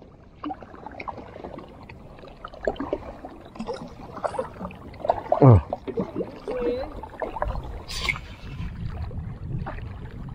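Water gurgling and sloshing against a plastic fishing kayak's hull, with an uneven run of small bubbly splashes and one deeper falling gurgle about halfway through.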